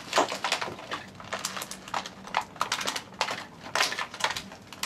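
Plastic packaging crinkling and crackling, with irregular clicks, as toy Beyblade launchers are worked out of their box.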